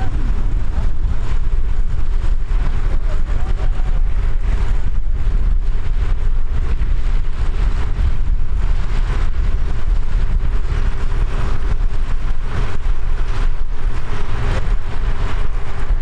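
Vintage tractor engines running, under a steady low rumble of wind on the microphone.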